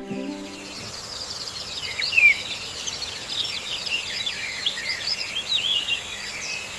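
A chorus of small birds chirping, many short, quick calls overlapping, with one louder chirp about two seconds in.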